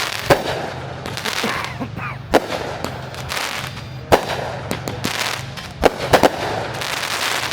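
Fireworks show: several sharp bangs of aerial shells bursting, with crackling and hissing from the shells between the bangs. A steady low hum runs underneath.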